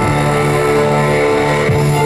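Loud intro music for a rock band's live set through the concert sound system: long held chords, with a soft low pulse about every couple of seconds.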